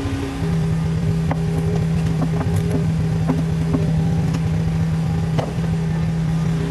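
A Takeuchi TB153FR mini excavator working under load: its diesel engine runs steadily with a constant hydraulic hum that sags briefly near the start as the machine swings and dumps, then holds. Several sharp clanks come from the bucket digging into soil and stone in the trench.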